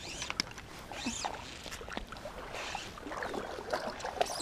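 Water lapping and sloshing close by, with scattered small clicks and rustles from fly line being handled.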